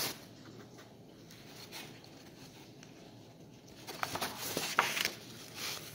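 Faint room tone, then a few soft paper rustles and crackles as the pages of a picture book are handled and turned, between about four and six seconds in.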